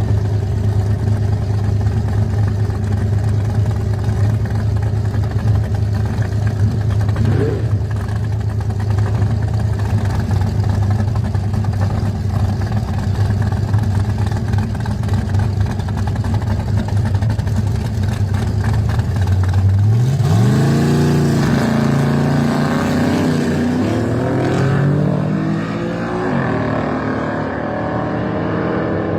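Gasser drag car's engine idling steadily, with one quick blip of the throttle about seven seconds in; in the last third it is revved several times, the pitch climbing and dropping with each rev.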